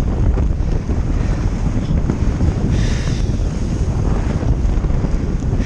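Strong wind buffeting the action camera's microphone while riding a kiteboard over choppy water, with a brief hiss about three seconds in.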